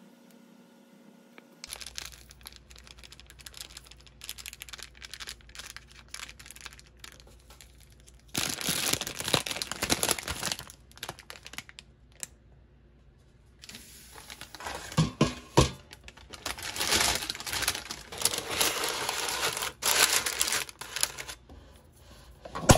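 Plastic instant-ramen packaging crinkling and tearing as it is handled. The crinkling is faint at first, then comes in loud stretches about eight seconds in and again from about fourteen seconds, with a few soft knocks.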